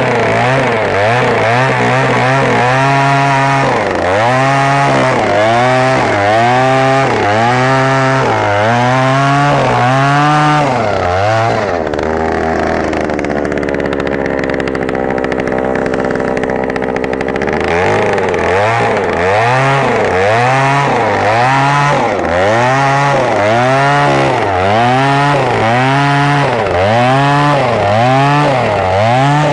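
Oshima 2PS petrol earth auger's 54 cc two-stroke engine drilling a 250 mm hole, its revs rising and falling about once a second. About twelve seconds in it drops to a steady lower speed for several seconds, then the rising and falling starts again.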